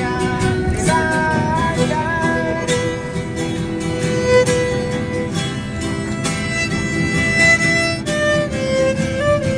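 Violin playing a melody of held notes that slide from pitch to pitch, over a steady rhythmic strummed accompaniment.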